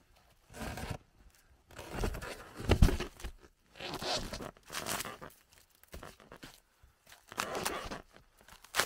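A wooden log being loaded into a snow-packed cargo sled: crunching snow and bark scraping and rubbing in irregular bursts, with a heavy thump about three seconds in as the log drops into the sled.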